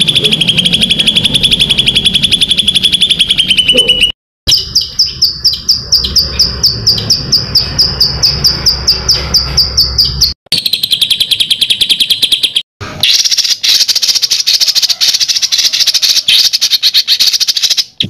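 Songbird calling in fast strings of sharp repeated notes: a rapid run, then a slower run of higher clipped notes about five a second, then rapid trilling again. Each section is cut off abruptly, as spliced clips in a bird-song training recording.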